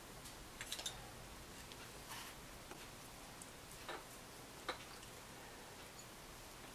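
Faint, scattered clicks and light taps of fingers and fingernails working modelling clay, a handful at irregular intervals over quiet room tone.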